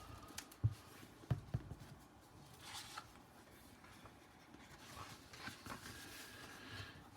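Paper rustling and soft thumps as the pages of a large hardcover book are handled and turned. A few dull knocks come in the first couple of seconds, then rustles of turning pages.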